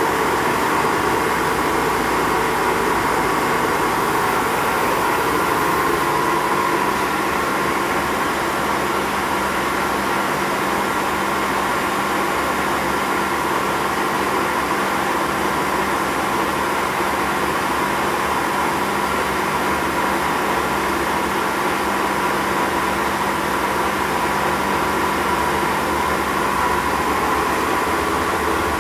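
Lagun FTV-2 CNC knee mill running: a steady mechanical hum with a steady whine.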